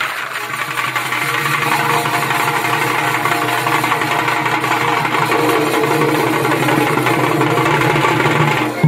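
Live Chhau dance accompaniment: a shehnai reed pipe holding long, buzzing notes over drums, with one loud strike near the end.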